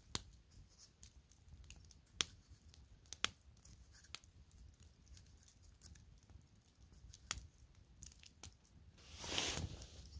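A knife cutting whole tomatoes inside a cooking pot: faint squishing and cutting with scattered sharp clicks, and a louder scraping rustle near the end.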